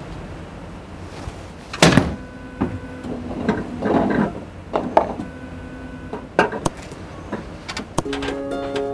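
A golf club striking a ball with one sharp crack about two seconds in, followed by softer knocks and rustling. Plucked-string music starts near the end.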